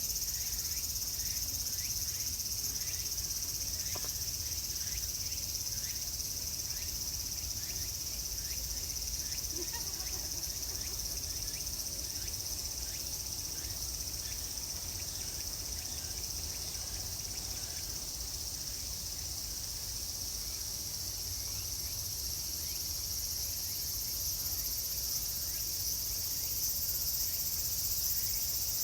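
Dense summer chorus of cicadas: a continuous high-pitched buzzing drone that swells a little near the end.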